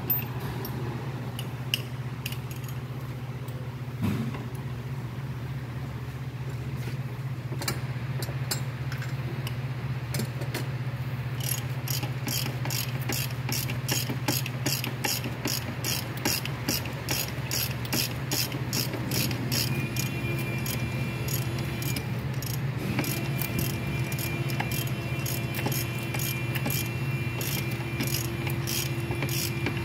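Hand ratchet wrench clicking in a steady rhythm, about two clicks a second, starting about a third of the way in, as the bolts of a newly fitted A/C compressor are turned. A steady low hum runs underneath.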